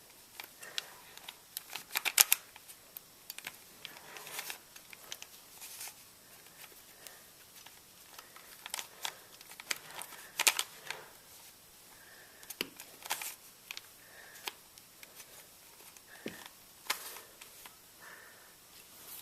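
Plastic layers of a 3x3 Rubik's cube being twisted by hand through an eight-move solving sequence: scattered, irregular clicks and clacks, loudest about two seconds in and again about ten seconds in.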